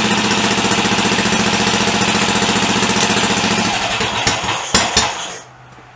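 BSA B44's single-cylinder four-stroke engine running at a steady idle, its carburettor still being set up. A little under four seconds in it falters, fires a few last loud beats and stops.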